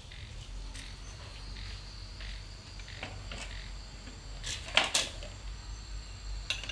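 Insects chirring steadily in a high, even tone, with a few short clicks or knocks, the loudest about five seconds in.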